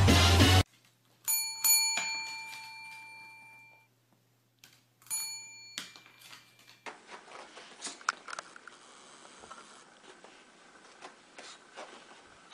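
A bell-like chime struck twice in quick succession, ringing and fading away, then struck once more and cut off short. Faint scattered ticks and taps follow.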